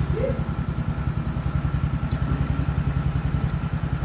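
An engine idling steadily, an even low throb.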